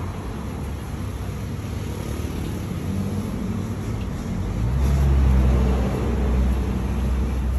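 Road traffic: a motor vehicle's engine running close by, growing louder about three seconds in and loudest about five seconds in, over steady traffic noise.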